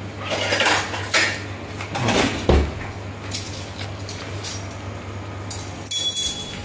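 Scattered clattering knocks and scuffs, with one heavier thump about two and a half seconds in and a rougher scraping stretch near the end, over a steady low hum.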